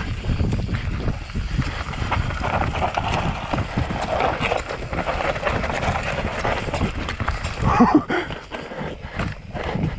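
Mountain bike riding down a steep, rocky dirt trail: tyres crunching over dirt and loose stones while the bike clatters and rattles over the bumps. A short, louder burst about eight seconds in.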